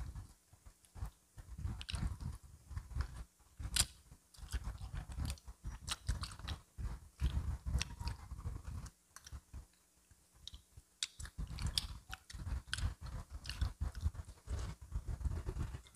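A person chewing and biting crispy fried chicken, a steady run of crunchy crackles from the fried coating, easing off for a couple of seconds past the middle.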